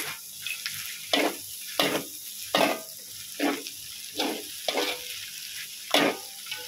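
Metal spatula scraping and tossing kuey teow noodles and bean sprouts around a metal wok in about seven strokes, over a steady frying sizzle.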